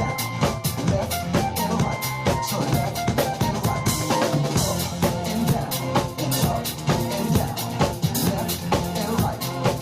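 Music with a steady drum-kit beat: bass drum and snare keeping an even rhythm under pitched instrumental parts.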